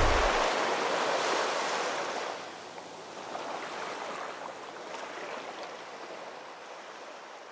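Sea surf washing on a beach: a steady rush of waves that is loudest at first and fades out gradually.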